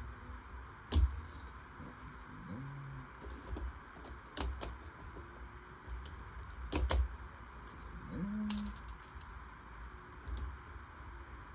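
Hard plastic LEGO Technic pieces clicking and clacking as they are handled and pressed together, in separate sharp clicks a second or two apart, the loudest about a second in.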